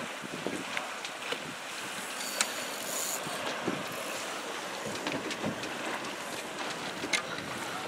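Wind buffeting the microphone on an open boat, with water washing along the hull and a few small, sharp clicks and knocks.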